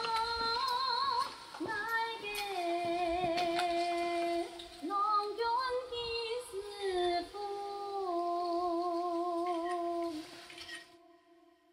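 A woman singing a Hakka mountain song solo, holding long notes with a wavering vibrato and sliding between pitches, the last note fading out about eleven seconds in.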